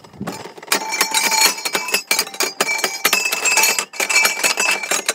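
Metal playground equipment being banged by hand as a makeshift drum beat: a quick, irregular run of clanking hits, each leaving a metallic ring.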